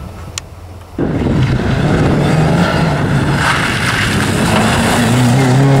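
Rally car engine revving hard as the car comes up the street, its pitch dipping and climbing, then rising steadily near the end as it accelerates. Before that, about a second of quieter outdoor background ends in an abrupt jump in loudness.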